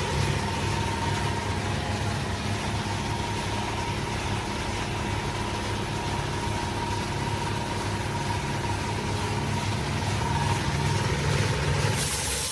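Two electric air compressors, a Kobalt and a Campbell Hausfeld 5 HP, running together on one contactor and filling a shared tank, with a steady pulsing hum and a constant whine. Near the end a sharp hiss of air joins in as the compressors are switched off at the pressure switch.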